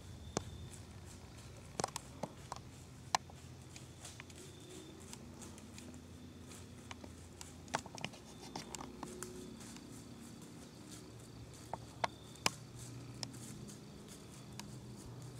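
Whitetail buck walking through dry fallen leaves: irregular crunching steps and small snaps of twigs and leaves, with a few sharper cracks about twelve seconds in.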